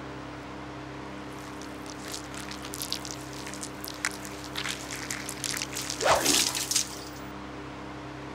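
Electric fan with a metal cage running with a steady hum. From about a second and a half in, an irregular run of wet splats and spatters builds, loudest around six seconds, as a soft brown mush is flung off the fan and sprayed about.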